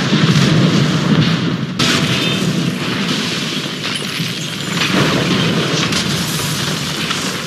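Film sound effects of large explosions: bomb blasts on a suspension bridge and then on a cathedral tower. They make a loud, continuous, deep rumble, with fresh blasts about two seconds in and again about five seconds in.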